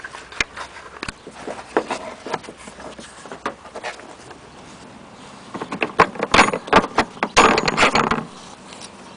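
Screwdriver tip scraping sand out of the grooves of a removed ribbed drive belt: scattered small clicks and scratches, then a louder run of quick scraping from about six to eight seconds in. The grit keeps the belt from seating properly in its pulley and causes belt squeal.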